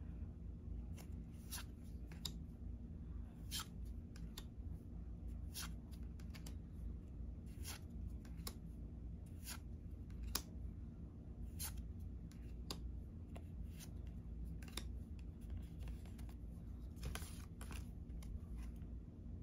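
Weiss Schwarz trading cards being handled and flipped through one by one: irregular light clicks and snaps of card stock, over a low steady hum.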